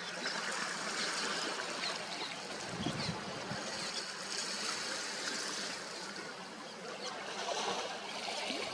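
Sea surf washing, a steady hiss of water with small splashy ticks here and there.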